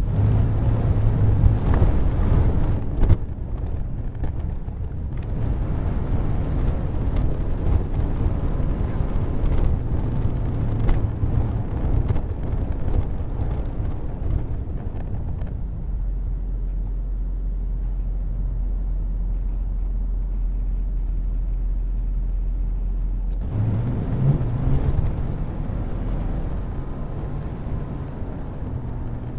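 Class A motorhome on the road: a steady, deep engine and road rumble, with some brighter road noise in the first few seconds and again about two-thirds of the way through.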